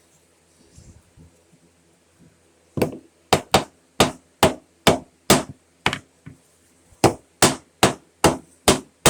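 A carved wooden board rapped repeatedly against a wooden surface, knocking the carving dust out of the cut recesses. There are about a dozen sharp knocks, roughly two a second, starting about three seconds in after a quiet start.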